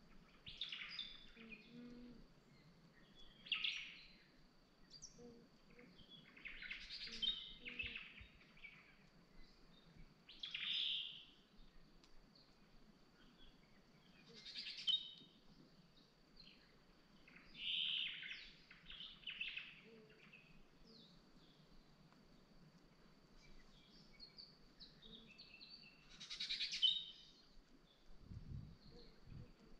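Birds calling: short, high chirping calls in bursts every few seconds, some bursts holding two or three notes.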